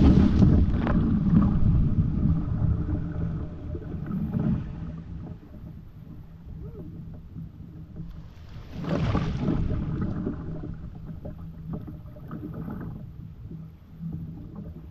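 Whitewater kayak sliding off a snowy bank into a fast, high river with a splash, then paddle strokes and water swirling around the hull. A louder rush of water comes about nine seconds in.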